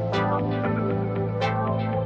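Background music: a mellow electronic track with steady held tones and a recurring accent about every second and a half.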